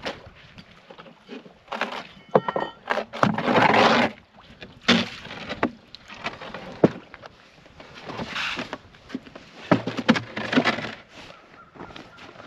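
Plywood floor sheets being pried loose from frozen lake ice and handled: irregular wooden knocks and scrapes, with a brief creak about two seconds in and a longer scraping rush about three to four seconds in.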